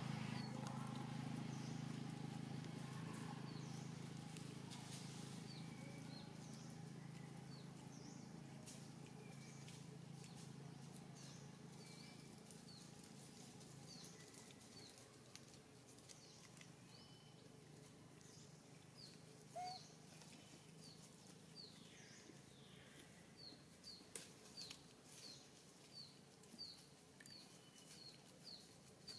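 Faint outdoor ambience: a low engine hum fades away over the first half, while small birds give short, high, falling chirps that come more often near the end.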